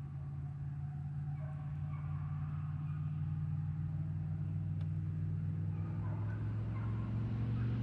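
A vehicle engine running steadily with a low hum, slowly growing louder.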